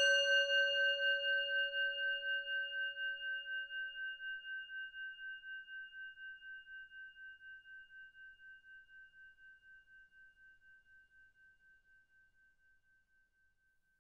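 Singing bowl struck once, its ringing tone pulsing slowly as it fades away, dying out about twelve seconds in.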